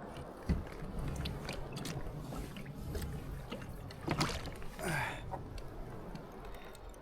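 Water lapping around a kayak, with scattered knocks and clicks of gear being handled against the hull. A sharp thump comes about half a second in, and a couple of louder short sounds come about two thirds of the way through.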